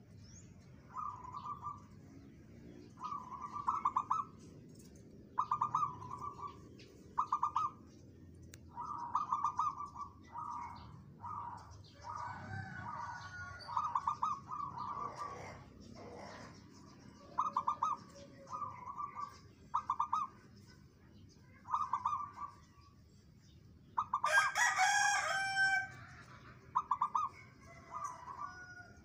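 Zebra dove cooing in short rattling phrases of quick notes, repeated over and over with brief gaps. About twenty-four seconds in, a louder call from another bird lasts about a second and a half.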